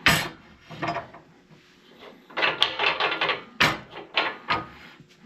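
Rubber motorcycle tire being pushed and worked onto its wheel rim on a manual tire changing machine: a series of sharp knocks and short bursts of rubbing and clatter, the loudest knock at the very start.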